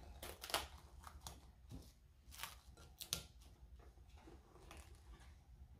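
Faint kitchen handling noise: scattered light clicks and soft rustles as things on the worktop are moved and handled.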